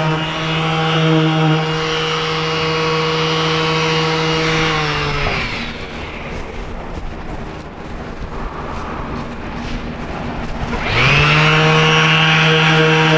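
Makita 18V cordless random orbital sander running steadily on a fiberglass centerboard patch, smoothing it before gel coat. About five seconds in it is switched off and winds down, leaving a lower, even rushing noise. Near the end it spins back up to full speed and runs on.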